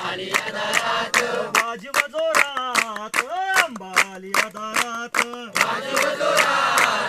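A group clapping in a steady rhythm, about three claps a second, while singing and chanting together. From about a second and a half in until about five and a half seconds, one voice sings a line alone over the clapping, then the group comes back in.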